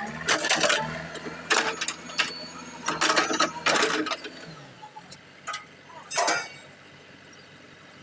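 JCB 3DX backhoe loader's diesel engine running as it works over gravel, with several loud bursts of clatter in the first four seconds and another about six seconds in. The engine sound drops to a low hum after about five seconds.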